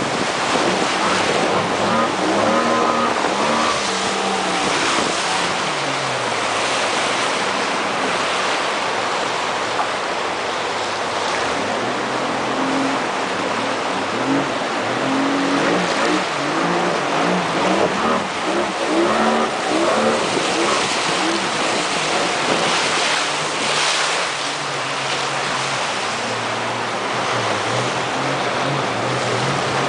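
Fast river rapids rushing and splashing along a moving motorboat's hull, with wind on the microphone. Under it the boat's outboard motor runs, its pitch rising and falling several times as the throttle changes.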